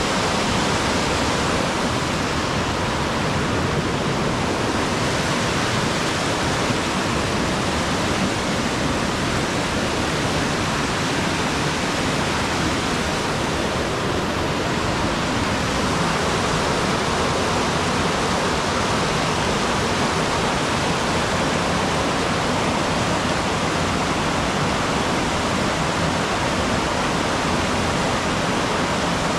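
Rushing water running steadily, an even, unbroken roar.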